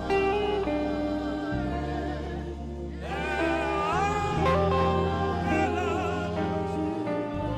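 Saxophone playing a slow gospel worship melody with vibrato, sliding up into a held high note about three seconds in, over sustained low backing notes.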